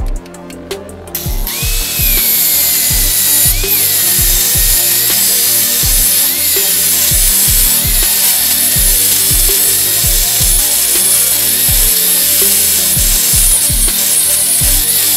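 Corded angle grinder cutting into a steel tube, coming in about a second in: a loud, harsh grinding with a motor whine that drops as the disc bites and lifts briefly now and then. Background music with a steady beat runs underneath.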